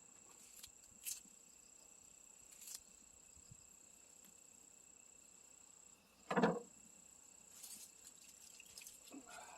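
Insects, likely crickets, trilling steadily in a high thin tone, with a few faint clicks and one short, louder knock about six seconds in.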